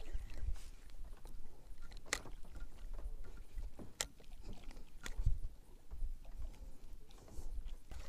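Handling noise in a small fishing boat: low bumping and rumbling, with three sharp taps or clicks about two, four and five seconds in.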